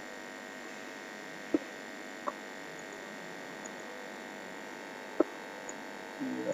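Steady electrical hum and hiss of a desk microphone, broken by three sharp computer-mouse clicks: one about a second and a half in, one just after two seconds and one about five seconds in.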